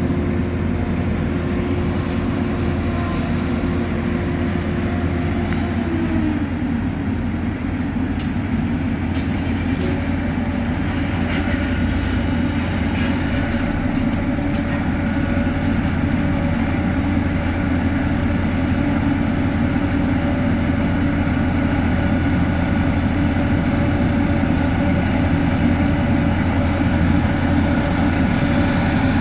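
Heavy diesel road-construction machinery running steadily. The engine note drops slightly about six seconds in, with faint scattered clicks and knocks over the drone.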